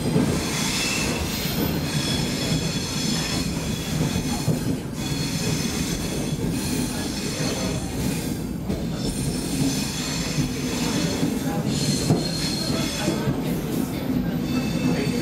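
Stockholm Metro C6 subway train running at speed, heard from inside the carriage: a steady rumble of wheels on rail, with high squealing tones from the wheels that come and go.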